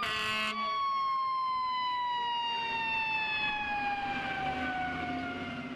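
Fire truck siren: a short loud blast right at the start, then one long wail that falls slowly in pitch as the siren winds down, fading out at the end.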